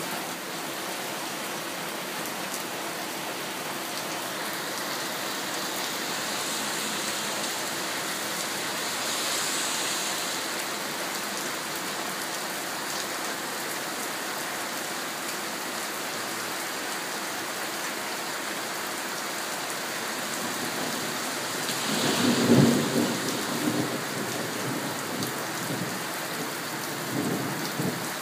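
Steady heavy rain falling, with a clap of thunder about three-quarters of the way through that rumbles for a couple of seconds, and a smaller rumble of thunder near the end.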